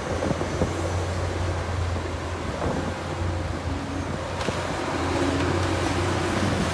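Cat hydraulic mining excavator's diesel engine running steadily with a low drone as it digs rock and loads a dump truck. A few short knocks of rock and steel come through over it.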